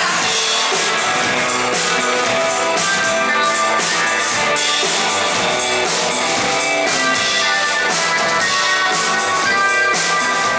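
Live rock band playing an instrumental passage: electric guitars over a drum kit with a steady beat.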